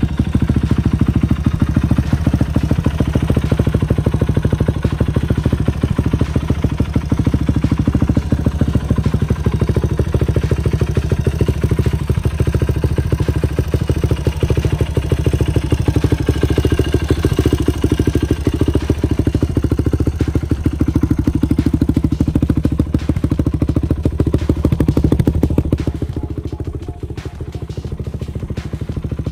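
2008 Yamaha YFZ450 race quad's single-cylinder four-stroke engine idling steadily, a rapid even beat of firing pulses, a little quieter near the end.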